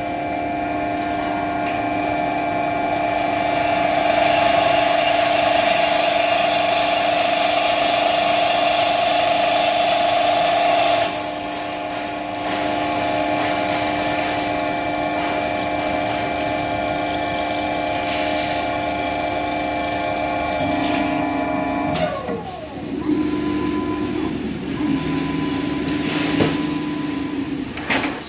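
CNC plasma table's drilling-head spindle running with a steady whine while its drill bit bores into metal plate, loudest for several seconds as the bit cuts. About three-quarters of the way in the spindle winds down with a falling pitch, followed by shorter motor whines of changing pitch.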